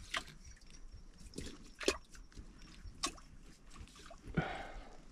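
Metal crab hook probing a wet mud crab burrow in a mangrove creek bank: a few sharp, wet clicks and taps spread through, with small squelches of mud. The hook finds no crab; the hole sounds empty.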